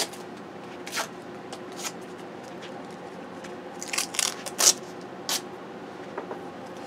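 Scattered short clicks and rustles of craft pieces being handled on a table, with a cluster of them around four to five seconds in, over a faint steady hum.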